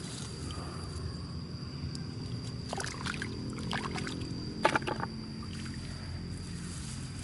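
Muddy water sloshing and splashing as hands work through a flooded mud hole, with splashes at about three seconds and a louder one at about five seconds. Under it run a steady low rumble and a thin, steady high tone.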